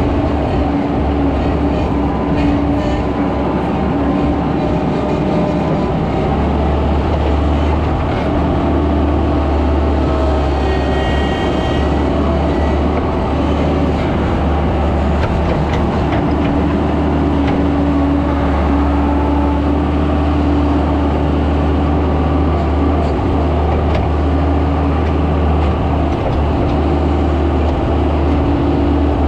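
Skid steer's engine running steadily as the machine works moving dirt, with a brief higher whine about eleven seconds in.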